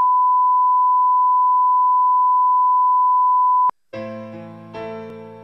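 Steady high-pitched test tone played over colour bars, cutting off abruptly about three and a half seconds in. A moment later keyboard music begins, with chords struck about three-quarters of a second apart, each dying away.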